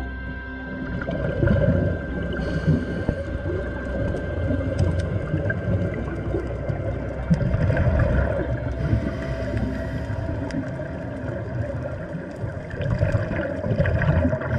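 Underwater sound of a scuba dive: a low rushing, bubbling noise that swells about every five or six seconds, typical of a diver's regulator breathing out streams of bubbles.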